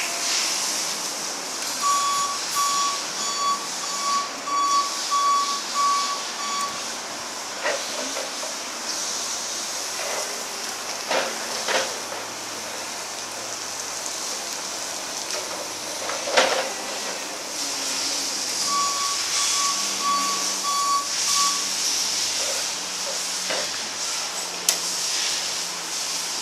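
Bendi BE420 electric articulated forklift manoeuvring: its reversing alarm beeps about twice a second in two runs, one near the start and one later on, over a steady hiss with a few short knocks.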